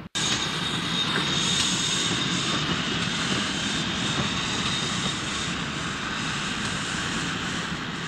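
Model railway train running on the layout: a steady whirring with a thin high whine and no rail-joint clicks, easing off slightly towards the end.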